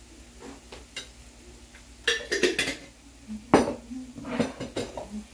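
A metal spoon clinks and scrapes against a jar and a ceramic plate as a white spread is spooned out, with a run of sharp clatters and knocks, the loudest about three and a half seconds in.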